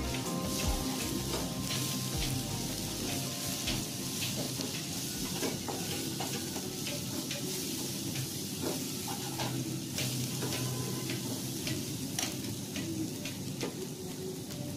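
Sliced onions, green chillies and spices frying in oil in a nonstick pan, sizzling steadily while a plastic spatula stirs them, with irregular clicks and scrapes of the spatula against the pan.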